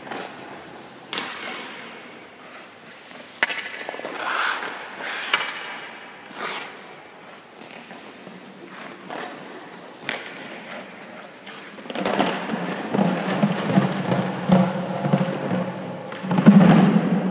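Hockey skate blades scraping on ice and goalie pads thudding down, in scattered strokes, growing louder and busier about twelve seconds in.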